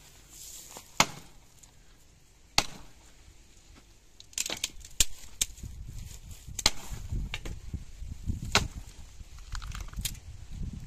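Axe chopping into a fallen tree limb: about eight sharp blows at uneven intervals, one every second or so, more closely spaced in the middle.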